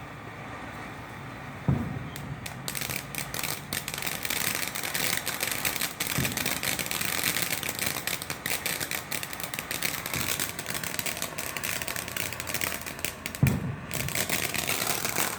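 A small consumer firework crackling rapidly and continuously for about thirteen seconds. It starts with a thump about two seconds in and gives a few more low pops along the way.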